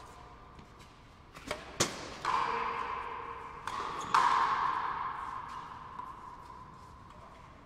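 Frontenis rally: the rubber ball struck by rackets and hitting the front wall, about five sharp smacks, each with a long echo ringing around the enclosed court. The two loudest hits come about two seconds and four seconds in.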